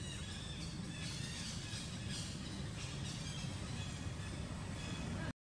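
Outdoor ambience: a steady low rumble with faint bird chirps over the first few seconds. It cuts to silence for about half a second near the end.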